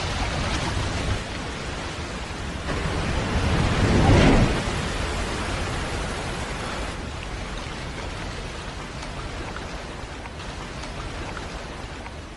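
Waterfall rushing steadily, with a louder surge of water about four seconds in.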